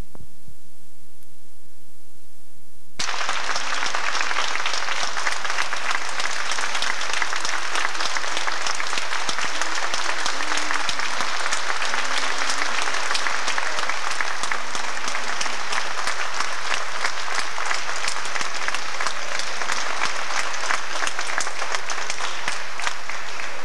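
Audience applauding steadily: dense, even clapping that begins abruptly about three seconds in.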